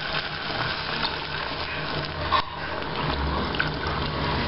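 Water poured steadily from a plastic jug into a pot of fried nopales, splashing in the pan.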